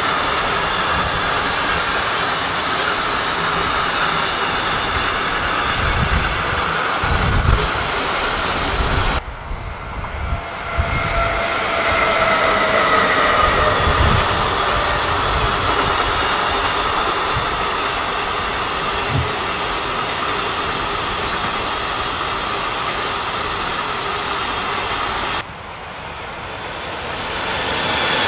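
Freight trains of container and tank-container wagons rolling past: steady wheel-on-rail rolling noise with faint whining tones and a few low thumps. The sound drops suddenly twice where the shot changes, and near the end an approaching electric locomotive grows louder.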